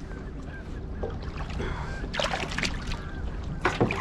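Steady low rumble of open-air ambience on a fishing boat, with a few sharp clicks and knocks about halfway through and again near the end.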